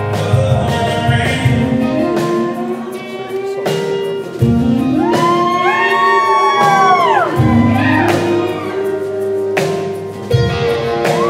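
Live acoustic band playing a country ballad: a male voice sings over strummed acoustic guitars, keyboard and a hand shaker. Around the middle there is a long held sung note that bends down at its end.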